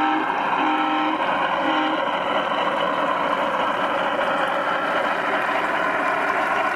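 G-scale model BR 218 diesel locomotive sounding its two-note horn three times in the first two seconds, the middle blast the longest, over a steady diesel running sound as it travels along the track.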